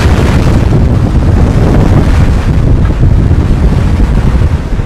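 Strong typhoon wind gusting across the microphone: a loud, low rumble of buffeting that swells and eases unevenly.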